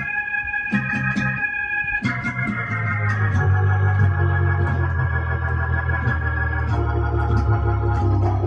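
Electronic keyboard played with an organ sound in a gospel style: sustained chords held over a deep bass, changing a few times, with the bass swelling about three seconds in.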